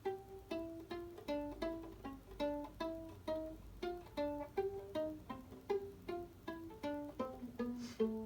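A solo string instrument played pizzicato: a steady run of plucked notes, about three a second, each dying away quickly. Near the end it settles on a lower, longer note.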